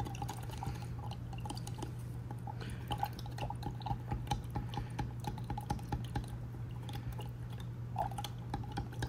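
Wooden stir stick clicking and scraping against the inside of a small glass jar as an oily glazing medium is stirred, a quick run of small ticks over a steady low hum.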